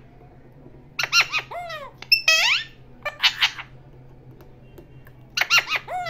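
Alexandrine parakeets giving four loud, shrill squawks a second or so apart. Some calls slide down in pitch at the end.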